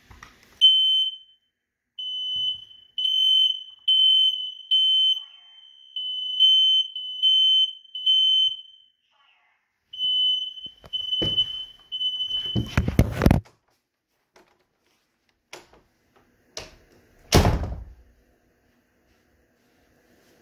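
Smoke alarm sounding a single high tone in uneven pulses during a test, for about twelve seconds before it stops. Two loud thumps follow, the louder one near the end.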